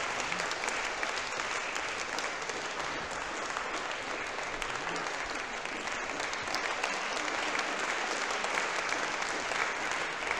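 Audience applauding steadily: many hands clapping together in a hall.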